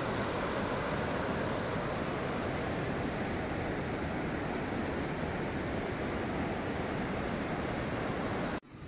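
A fast-flowing river rushing, a steady loud rush of water with no break in it, cut off sharply near the end.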